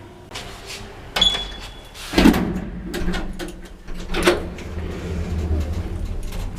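Apartment-building lift in operation: a short high beep about a second in, then the clunks and knocks of the lift doors, over a low steady hum of the lift from about two seconds in.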